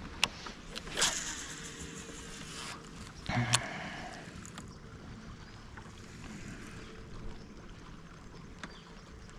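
Handling noise from fishing gear on a kayak: a few sharp clicks and knocks over a soft steady background, with a louder knock about three and a half seconds in.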